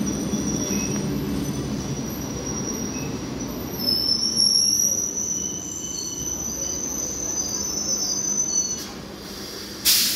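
Electric local train (EMU) slowing to a stop at a platform: wheels rumbling on the rails with a thin, high-pitched wheel and brake squeal that rises slightly about four seconds in and holds until near the end. A short, sharp hiss comes just before the end.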